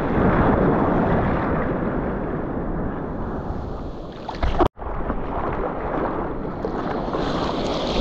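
Wind buffeting the microphone over the rush of waves and surf, with a brief sudden dropout a little past halfway.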